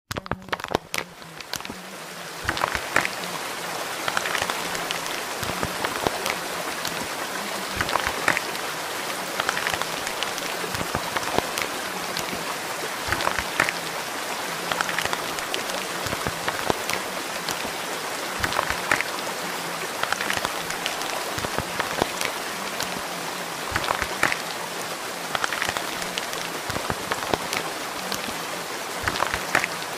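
Steady rain falling, a dense even hiss with many separate drops ticking, fading in over the first two seconds.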